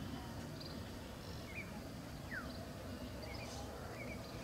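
Faint outdoor background with a steady low hum, and a few scattered short bird chirps and calls.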